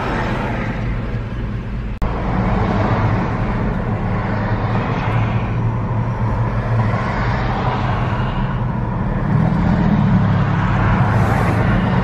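Car engine hum and road noise heard from inside the cabin during city driving, with a steady low drone underneath. The sound cuts out for an instant about two seconds in.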